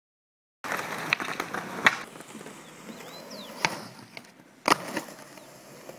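Skateboard rolling on concrete, with several sharp clacks of the board and wheels striking the ground, the loudest about three-quarters of the way through. It starts after about half a second of silence.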